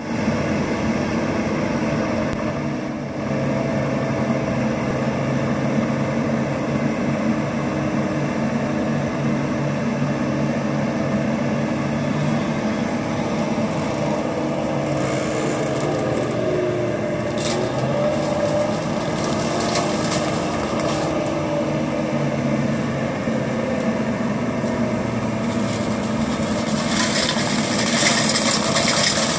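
Compact excavator's diesel engine and hydraulic flail mower head running steadily as the flail works through brush. Near the end the cutting gets louder and harsher as the head chews into the brush.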